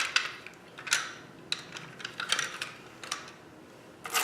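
Small hard parts of an EST SIGA-278 fire alarm pull station clicking and clattering as they are handled and fitted back together: about half a dozen sharp, unevenly spaced clicks.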